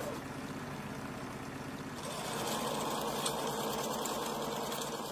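Several industrial sewing machines running in a shoe factory, a steady fast mechanical whir that grows a little louder about two seconds in.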